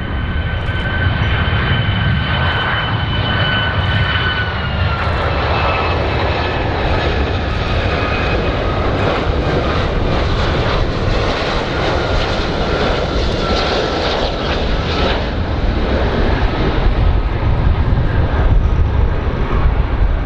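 Airplane engines running loud and steady: a deep rumble under a high whine that slides lower about four and a half seconds in and again near eight seconds.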